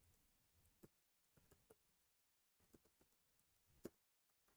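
Near silence broken by a few faint, irregular computer keyboard keystrokes, the loudest just before four seconds in.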